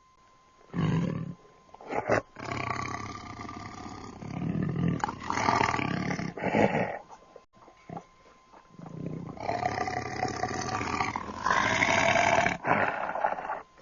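Tiger growling in a series of growls: a short one about a second in, a long drawn-out one from about two to seven seconds, another long one from about nine to twelve seconds, and a short one near the end.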